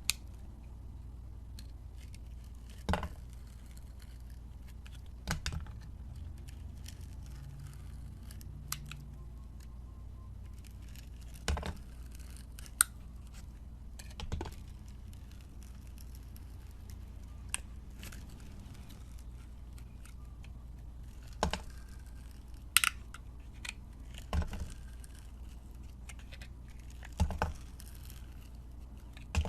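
A blade cutting through a bar of dry soap: short, crisp crunches at irregular intervals, about ten in all, some single and some in quick pairs, over a steady low hum.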